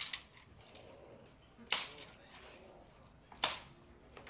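Sharp cracks of a stick striking during Belgian Malinois bite work: a quick cluster, then two loud single cracks spaced about a second and a half apart.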